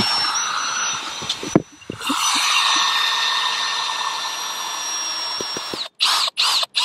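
Power drill driving roofing screws through round plate washers into the base sheet: a steady motor whine in two runs. The first stops about a second and a half in; the second runs about four seconds. A few short bursts follow near the end.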